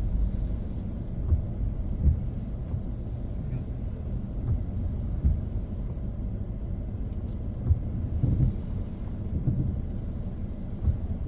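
Low, steady rumble of a car heard from inside the cabin, with a few soft thumps.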